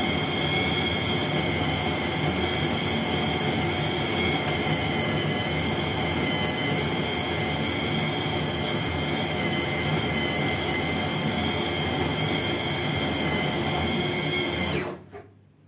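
Electric mini food chopper running steadily with a high motor whine as it chops ground meat for köfte. It stops abruptly near the end.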